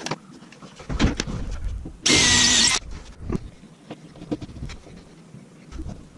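Knocks and clatter of hanging hardware being handled, with a short loud whirr of a power tool motor about two seconds in, lasting under a second.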